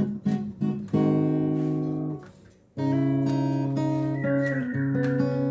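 Background acoustic guitar music, plucked and strummed, with a short break a little past the middle before the chords return.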